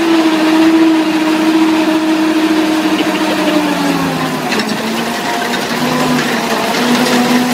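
Diesel engine of an old tracked logging skidder running under load as the machine pulls through mud. Its note drops about four seconds in, then picks up again.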